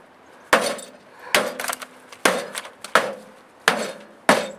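A microwave oven's sheet-metal casing being struck six times with a long-handled hammer, a little under a second apart. Each blow is a sharp bang with a short metallic ring.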